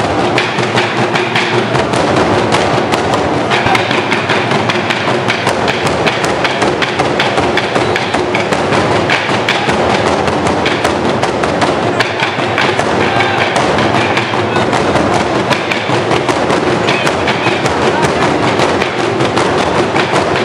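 Traditional Burundian drum ensemble: many large wooden barrel drums (ingoma) beaten with pairs of wooden sticks in a fast, dense, unbroken rhythm.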